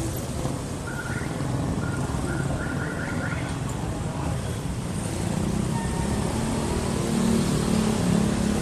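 Steady road-traffic noise heard from a moving e-bike, with a few short high squeaks about a second to three seconds in. A deeper hum comes in and grows louder near the end.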